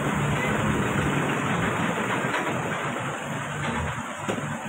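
A vehicle engine idling, a steady low hum under a broad rushing noise.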